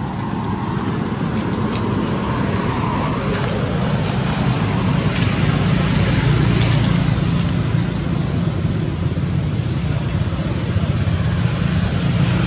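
Steady low rumble and hiss of road traffic, swelling over the first few seconds and then holding.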